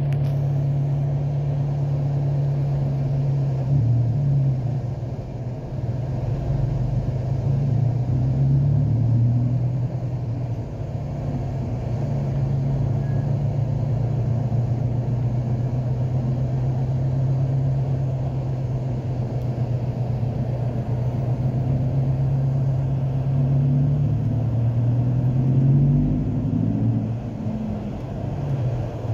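Car engine hum and road noise heard from inside the cabin while driving slowly in traffic; the low hum shifts in pitch a few times as the car speeds up and slows.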